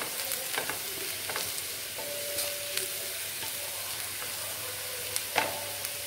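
Sliced onions sizzling as they fry in ghee and coconut oil, just starting to soften, stirred with a wooden spatula that scrapes and taps against a nonstick frying pan; one sharper knock of the spatula about five seconds in.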